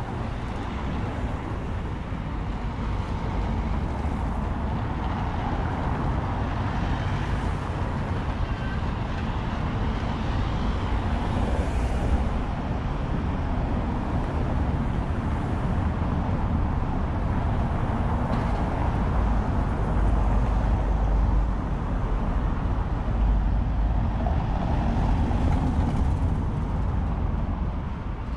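Steady city road traffic, a continuous low rumble and hiss of passing cars and other vehicles.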